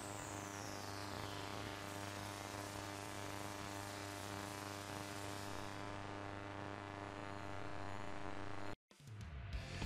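Steady electrical hum, a buzzy drone made of many evenly spaced tones. It cuts off abruptly near the end.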